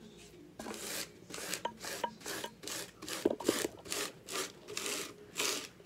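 Pieces of paper scraping loose glitter across a plastic garbage bag in quick, repeated scratchy strokes, two or three a second, gathering the excess glitter up.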